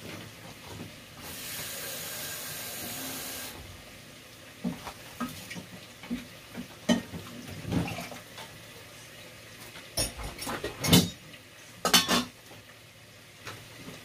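Kitchen utensils clattering: a spoon clinks against a jar and a cooking pot, with several sharper knocks of pots and lids, the loudest about ten and twelve seconds in. Before that, a steady hiss lasts about two seconds.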